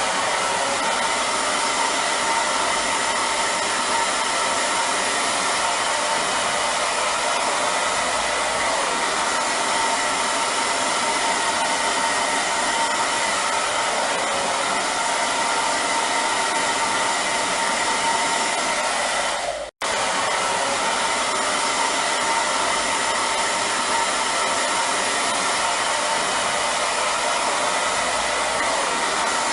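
Hair dryer running steadily: a dense airflow rush with a steady whine in it. It cuts out for a split second about twenty seconds in, then carries on unchanged.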